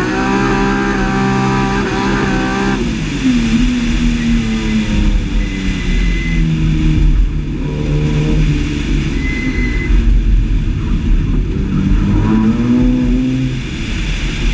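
BMW S50B32 3.2-litre straight-six in an E30 race car revving hard under acceleration. The note climbs and holds high, drops sharply about three seconds in as the driver lifts, runs at lower, varying revs through the cones, then climbs again near the end.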